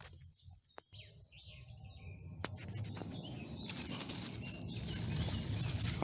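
Small birds chirping in short calls during the first half, with a couple of sharp clicks. From a little past halfway a rustling, scraping noise builds and becomes the loudest sound.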